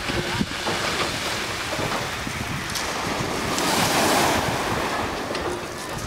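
Small Pacific waves breaking and washing up a pebble beach, the wash swelling to its loudest about three and a half to four and a half seconds in. Wind buffets the microphone throughout.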